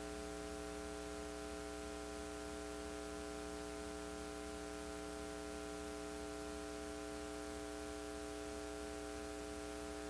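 Steady electrical mains hum with an even hiss beneath it, unchanging and with no other sound.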